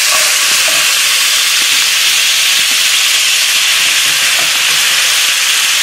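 Hot bacon fat sizzling in a skillet as freshly boiled spaghetti is tossed into it with tongs: a steady, even hiss.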